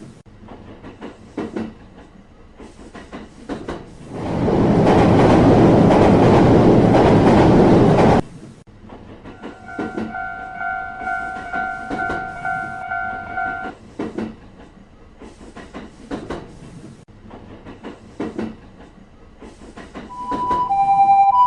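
Train sound effects at a Japanese level crossing: light rail clatter, then about four seconds in a loud rushing pass lasting some four seconds that cuts off suddenly. A held two-note horn sounds for about four seconds, more wheel clicks follow, and near the end the crossing's alternating two-tone warning bell starts ringing.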